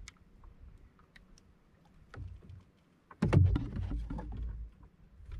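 Handling noises in a small wooden outrigger fishing boat: scattered clicks and knocks against the hull as a handline and catch are worked, then a louder clatter of knocks with a low rumble starting about three seconds in and lasting over a second.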